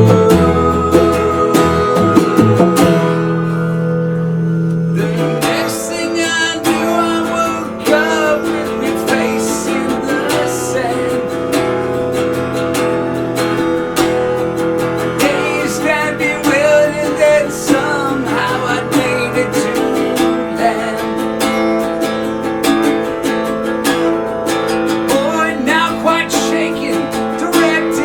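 Live band music led by strummed guitar, with a wavering melody line entering about six seconds in.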